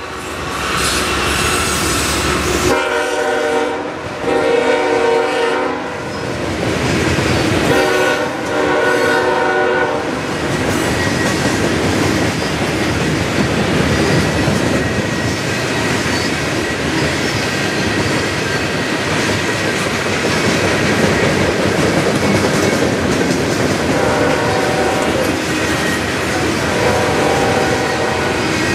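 A Norfolk Southern ES44DC's Nathan K5HL air horn sounds a few more blasts in the first ten seconds, then the loaded coal train's cars roll steadily past, their wheels clattering over the rail joints. Faint tones come in near the end.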